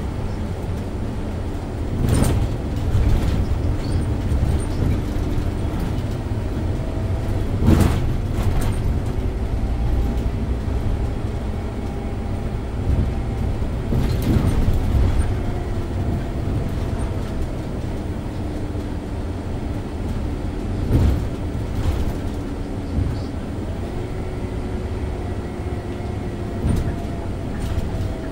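Scania OmniLink city bus heard from inside while driving: a steady engine and road rumble with a faint whine that shifts in pitch, broken now and then by sharp knocks and rattles from the bus body and fittings.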